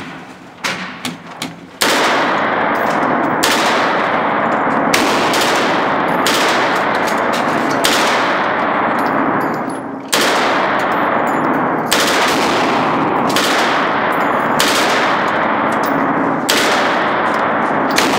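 Automatic rifle fire in an indoor shooting range. A few separate shots come first; then, about two seconds in, the fire turns into a near-continuous loud din of rapid shots that lasts to the end.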